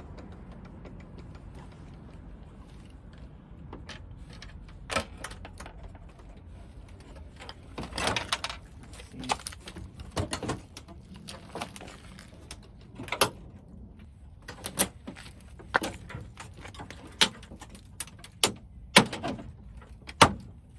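Irregular clicks, clunks and rattles of plastic and metal parts being handled and pried apart while a rear-projection TV is disassembled, with several sharper knocks in the second half.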